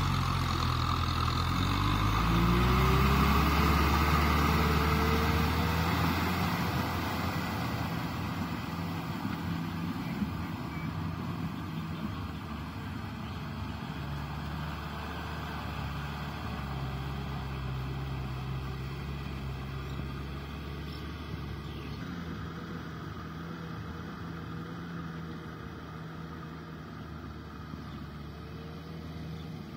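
Kubota M6040SU tractor's four-cylinder diesel engine running under load while it drags a rotary tiller through wet paddy mud. The engine note rises in pitch over the first few seconds and then holds steady, and the sound grows fainter as the tractor works away.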